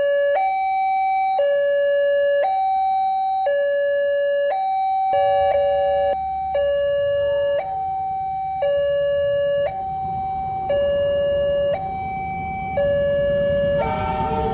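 Indonesian railway level-crossing warning alarm sounding its two-tone electronic bell, alternating between a higher and a lower tone about once a second. From about a third of the way in, the low rumble of an approaching train grows beneath it, rising sharply near the end as the train reaches the crossing.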